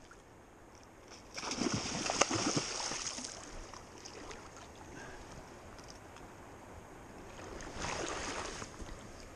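Splashing water as a hooked steelhead thrashes at the surface, over the low rush of the river: a loud splashy burst lasting about two seconds, starting about a second and a half in, and a shorter one near the end.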